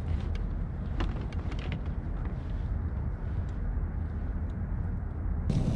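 Wind rumbling on the microphone, with a few sharp clicks and light knocks of gear being handled aboard a kayak, several of them about a second in.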